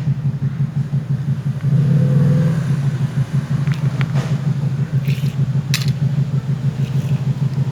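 Steady low mechanical hum, like a motor running, with a few light clicks and taps about halfway through.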